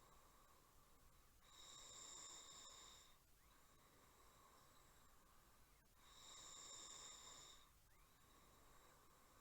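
Faint snoring: two snores, each about a second and a half long, about four and a half seconds apart, with quieter breathing between.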